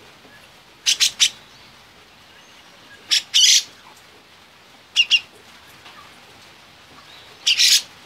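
Grey-cheeked bulbul (cucak jenggot) calling in four short, loud bursts of two or three quick notes, about two seconds apart.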